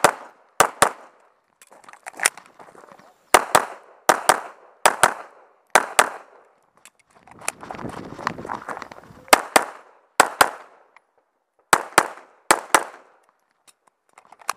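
Handgun fired in quick pairs of shots, about nine pairs in all, each pair a fraction of a second apart. About halfway through, the shooting breaks for a second or so of scuffing and rustling, then the pairs resume.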